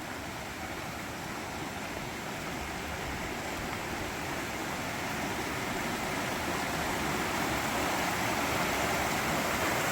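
A fast-flowing mountain river running hard over rocks: a steady rush of water, high and rolling, that grows gradually louder.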